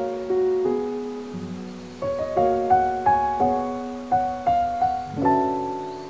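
Background piano music: a gentle melody of struck notes and chords, each note fading after it is played.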